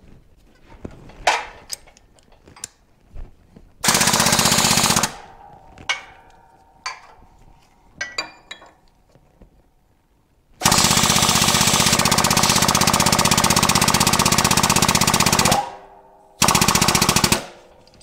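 Pneumatic air hammer driving a wheel bearing into a Suzuki TC125 motorcycle hub. It hammers in three bursts of rapid blows: a short one about four seconds in, a long one of about five seconds, and a short one near the end. Light clicks and knocks of metal parts are heard between the bursts.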